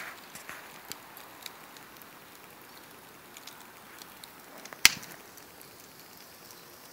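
Wood burning in a fire pit, crackling faintly with scattered small pops, and one loud sharp crack about five seconds in.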